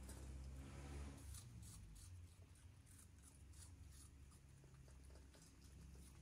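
A puppy chewing and crunching raw apple pieces from a steel bowl: faint, irregular crunches and clicks over a low steady hum.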